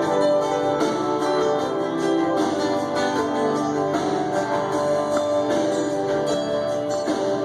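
Guitar music playing from a vinyl record on a Marantz Model 6100 turntable.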